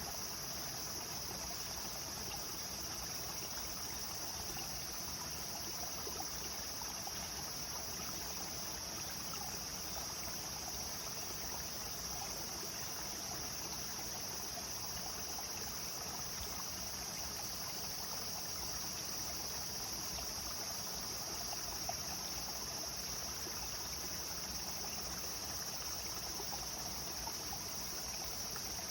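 Clear river water flowing in a steady rush over stones, with a constant high-pitched drone of insects.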